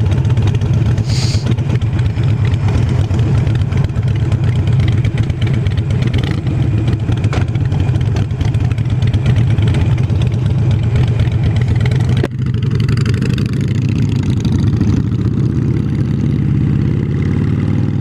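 Harley-Davidson Iron 883's air-cooled V-twin engine running under way at a steady cruise. About twelve seconds in there is a short click and a brief dip in level, then the engine note climbs steadily as the motorcycle accelerates.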